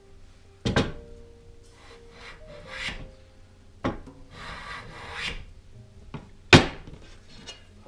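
Hand plane shaving a wooden board: strokes of hissing rasp as the blade cuts, with three sharp wooden knocks between them, the loudest about two-thirds through.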